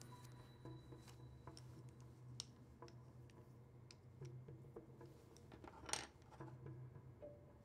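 Quiet office room tone with a low steady hum and faint clicks and taps as a wooden pencil is handled in the fingers. One sharper click comes about six seconds in.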